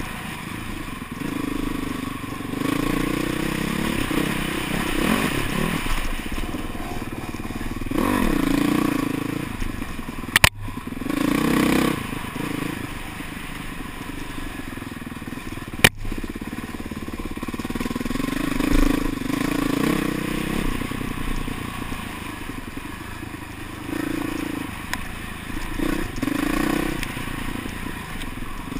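Dirt bike engine heard close up while riding a rough trail, revving up and falling back again and again with the throttle. Two sharp knocks stand out, about ten and sixteen seconds in.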